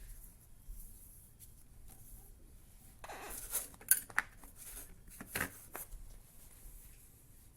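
Faint handling noises: a few short rustles and sharp clicks, bunched between about three and six seconds in, the sharpest just before the four-second mark.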